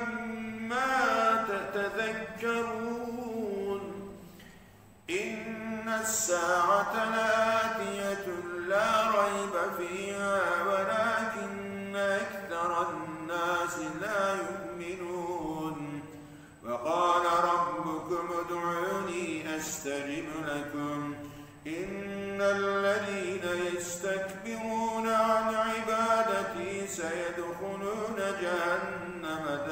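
A solo male voice chanting Quran verses in Arabic in melodic tajweed style. The long held phrases glide in pitch and are separated by three short pauses, about 5, 16 and 22 seconds in.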